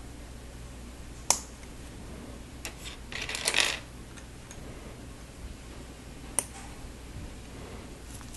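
Small plastic Lego pieces being handled: a sharp click about a second in, a short spell of rattling and clattering around three seconds in, and another single click past the middle.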